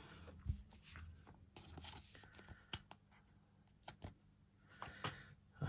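A Pokémon trading card being slid into a plastic card sleeve: faint rustling and scraping with a few small clicks.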